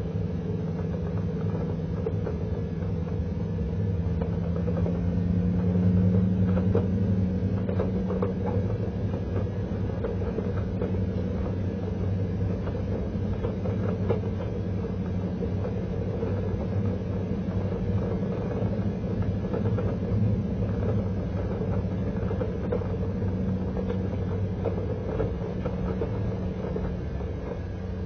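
Pickup truck driving slowly on a dirt road while towing a trailer: a steady engine drone and road rumble that swells a little about six seconds in.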